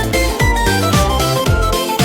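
Upbeat electronic background music with a steady beat, a deep falling kick drum about twice a second under a bright synth melody.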